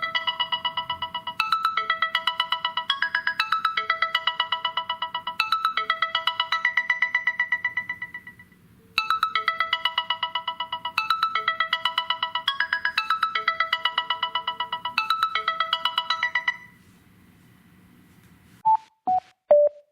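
Samsung Galaxy A04s incoming-call ringtone: a bright electronic melody of rapidly repeated notes. An eight-second phrase plays twice with a short break between, then stops a few seconds before the end, and a different run of short single notes begins near the end.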